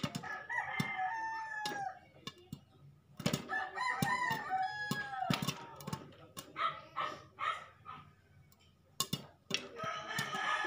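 A rooster crows twice, about half a second in and about three seconds in, and starts a third crow near the end. Throughout, sharp pops of popcorn kernels bursting in a covered pan.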